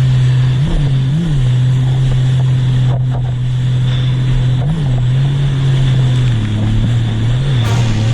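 Sea-Doo jet ski engine running at speed, a loud steady drone whose pitch briefly jumps up and drops back a few times.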